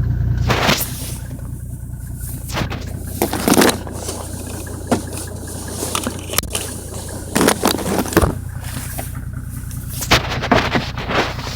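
Mercedes-Benz S124 estate with its engine running as a steady low hum, broken by short noises at irregular intervals of one to two seconds: the strange sound that only happens when the car is cold.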